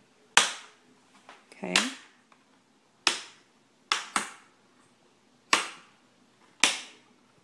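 Plastic screen bezel of a Gateway NV54 laptop being pried off by hand, its retaining clips letting go in about seven sharp snaps, roughly a second apart.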